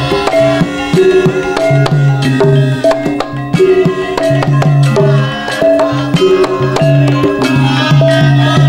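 Javanese gamelan music accompanying a lengger dance: a repeating melody of held notes over a low recurring note, driven by frequent sharp kendang hand-drum strokes.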